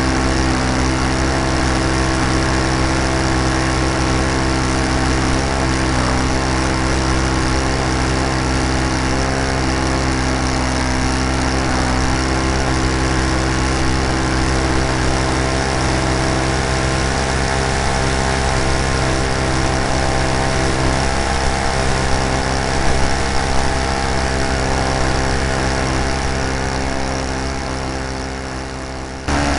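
Great Planes Slow Poke RC model airplane's engine running steadily at a constant throttle, heard close up from a camera carried on the plane, with a rushing hiss over it. Near the end it eases off slightly, then cuts abruptly back to full level.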